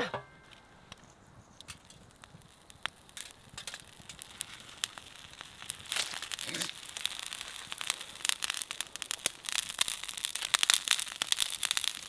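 Wood fire crackling with scattered sharp pops. From about four seconds in, plastic packaging is crinkled and handled, a dense crackly rustle that grows louder and busier toward the end.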